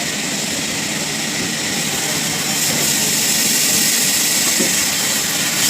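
Sawmill machine running with a steady, hissing mechanical noise that gets louder about two and a half seconds in.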